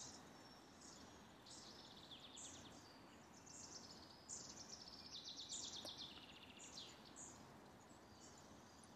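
Faint woodland birdsong: several birds chirping and trilling in quick repeated phrases, busiest around the middle, over a soft steady hiss.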